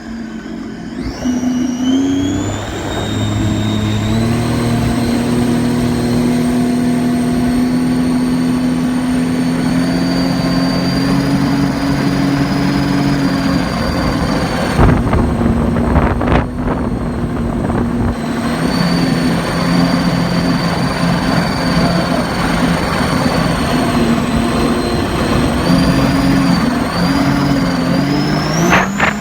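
Supercharged car engine running and being revved, with a high supercharger whine that climbs and falls with the revs. About halfway through the whine drops away and two short sharp bursts are heard. The owner takes this for a turbo-style flutter from the supercharged engine.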